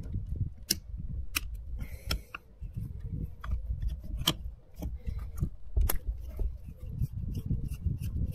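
Screwdriver clicking and scraping against the metal of a Trabant carburettor body while working at a small screw-in jet, giving a string of sharp irregular clicks over a low rumble.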